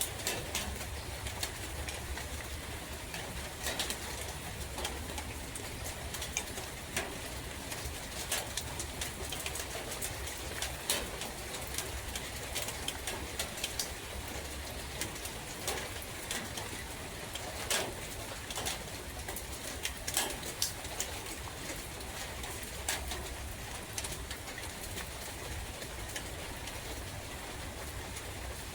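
Steady rain with many scattered drops tapping over an even hiss and a low wind rumble, while a dove coos.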